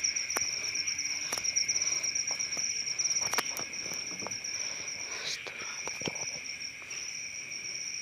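Night insects calling in chorus: a high, finely pulsed trill over a lower steady drone, with scattered short clicks and rustles.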